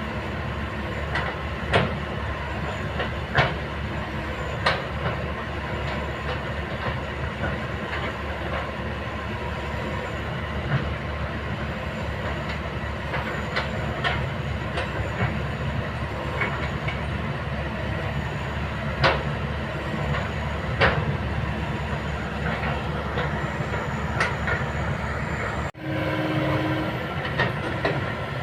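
Kobelco excavator working: its diesel engine runs steadily under sharp metal clanks that come every few seconds, with a brief break in the sound near the end.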